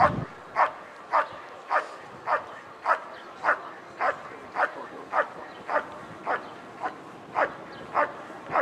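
German shepherd barking in a steady, even rhythm, nearly two barks a second, each bark dropping in pitch. This is the sustained bark of a Schutzhund (IPO) protection routine.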